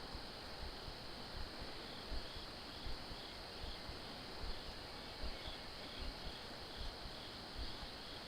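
Insects chirping in a steady, high, faint chorus, with irregular low rumbles underneath.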